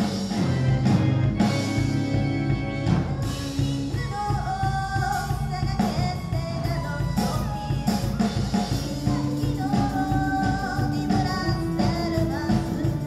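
A live rock band performing: a singer's lead vocal over electric guitars and a drum kit.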